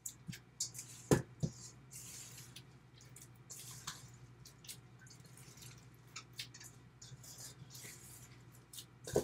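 Wet, squelching stirring and mashing of a thick banana-and-oat batter in a metal mixing bowl. The utensil knocks sharply against the bowl twice about a second in and once more near the end.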